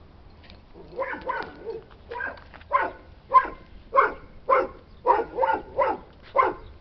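A dog barking repeatedly, about a dozen short barks at roughly two a second, starting about a second in.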